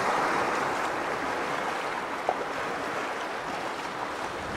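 Sea surf washing over shoreline rocks: a steady rushing noise of breaking waves.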